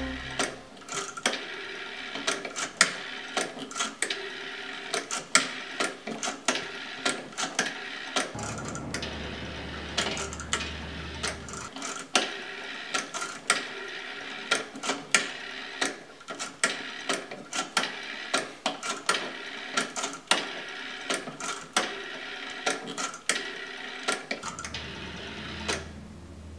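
Rotary dial of a black wall telephone being turned and let go digit after digit: a long run of quick mechanical clicks as the dial spins back. A low hum comes in for a few seconds near the middle and again near the end.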